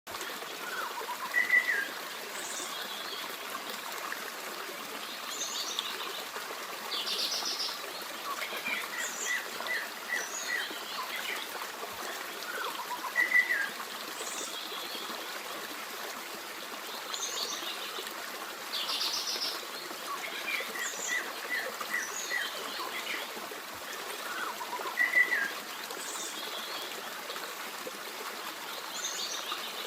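Forest stream running steadily, with songbirds singing and chirping over the water. The loudest is a bright chirp that comes back about every twelve seconds, and the whole pattern of calls repeats on that cycle.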